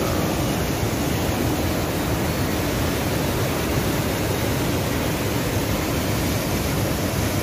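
River rapids: swollen white water rushing over and between boulders in a rocky gorge, a steady rush of water.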